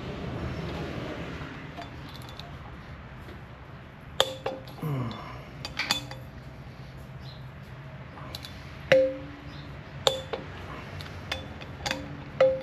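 Hand tools and sockets clinking against metal as bolts on a motorcycle's rear wheel are worked by hand. Several separate sharp metallic clinks, each ringing briefly, come at uneven intervals from about four seconds in.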